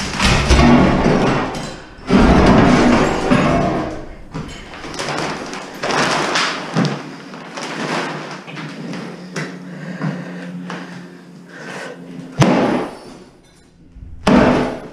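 Hammer blows and crashes on broken pieces of an enamelled cast iron bathtub, with the enamel shards clattering and crunching. There are two sharp single strikes near the end.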